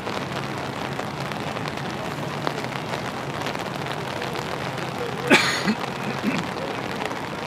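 Rain falling on an umbrella held over the camera: a steady hiss with a dense scatter of tiny drop ticks. One brief louder burst about five seconds in.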